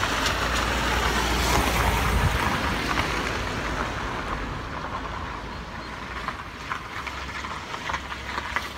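Steady outdoor background noise, a low rumble under a wide hiss with no clear tones. The rumble is strongest for the first two seconds, and the noise eases off after about three seconds.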